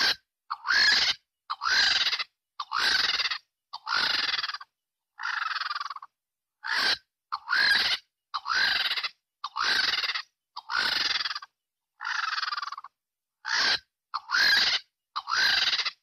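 Vulture calling: a long run of harsh, hoarse screeches, about one a second and each under a second long, separated by short silent gaps.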